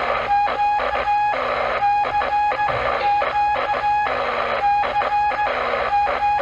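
Morse code (CW) heard through the restored Crosley BC-654 receiver's loudspeaker: a steady beeping tone keyed on and off in dots and dashes, in groups with crackly static hiss between them. It is a clean on-air test signal, the sign that the rebuilt receiver is working.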